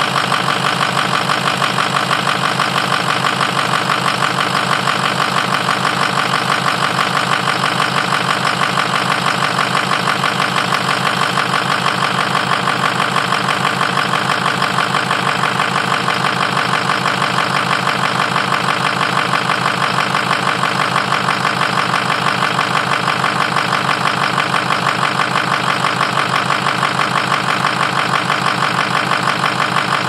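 Diesel engine idling cold with a steady, fast rhythmic tick-knock running through it, which the owner suspects is a bad lifter or valve.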